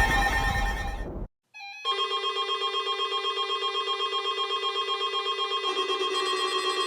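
Several weather radios sounding their alert tones together for a required weekly test. A warbling, siren-like alarm fades out in the first second. After a brief silence, a steady chord of several tones starts, pulsing rapidly about six times a second, and another tone joins near the end.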